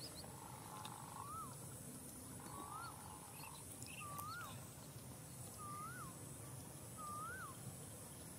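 An animal's call, a whistled note that rises and then drops sharply, repeated about every second and a half over a steady high hiss.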